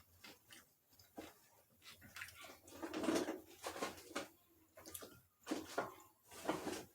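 Close-up eating sounds: wet chewing and smacking of sauced seafood-boil food, with irregular sharp clicks from handling it, loudest about three seconds in.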